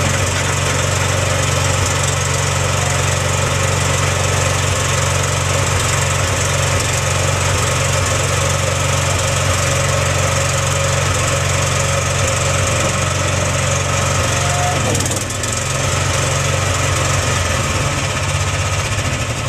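An engine running steadily at a constant speed, with a brief dip in level about fifteen seconds in.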